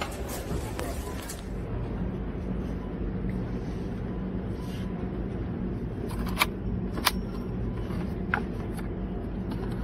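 Steady low supermarket background hum. In the second half come three short, sharp clicks of clear plastic cherry-tomato punnets being handled.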